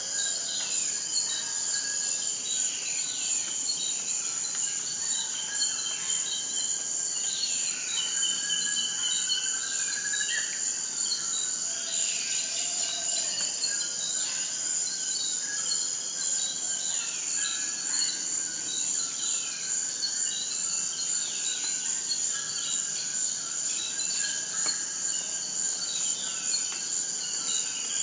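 Steady high-pitched insect chorus, with birds calling over it in repeated short downward-sweeping calls and a few rising whistles.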